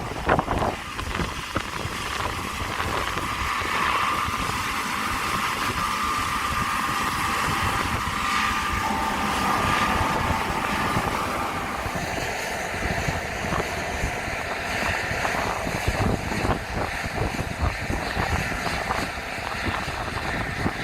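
John Deere combine harvesters running, with a steady whine through the first half, and wind buffeting the microphone.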